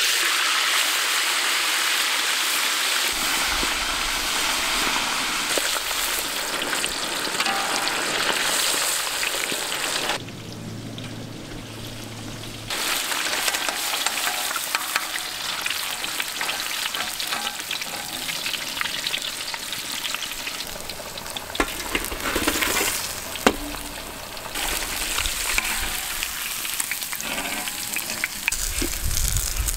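Turmeric-marinated fish pieces sizzling and crackling as they deep-fry in hot vegetable oil in a large iron kadai, a dense steady hiss. The sizzle dies down for a couple of seconds about ten seconds in, then comes back with a few sharp clicks.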